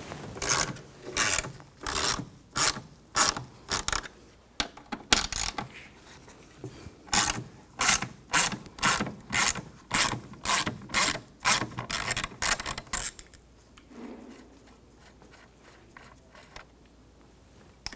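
Hand ratchet with an M6 triple-square socket clicking in repeated back-and-forth strokes, about one and a half a second, as it backs out the door latch screws. The strokes come in runs with short pauses between them and stop a few seconds before the end.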